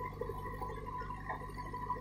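JCB backhoe loader's diesel engine and hydraulics running steadily while the backhoe arm lifts and swings a full bucket of soil: a steady low drone with a thin whine over it.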